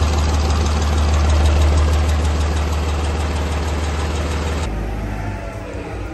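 2022 Cummins L9 8.9-litre six-cylinder turbocharged diesel running steadily at idle on a test stand. About four and a half seconds in it cuts off abruptly, leaving a much quieter low rumble.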